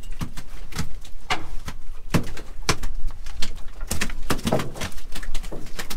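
Irregular wet slaps and knocks of cod flopping and being handled against aluminum fish bins and deck, several hits a second.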